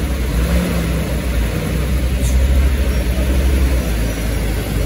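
Turbo-intercooled diesel engine of a 330 PS UD Trucks lorry running steadily at low revs close by, a loud, deep rumble.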